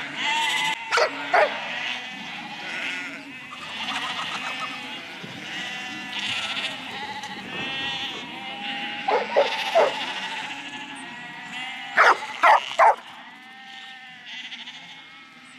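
A flock of sheep bleating over one another, while a huntaway sheepdog barks in short runs, three quick barks about nine seconds in and three more about twelve seconds in, driving the sheep on.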